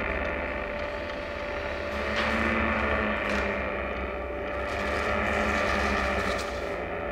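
A sustained, rumbling ambient drone with a steady held tone running through it, swelling in loudness twice, with a few short hissy crackles over it.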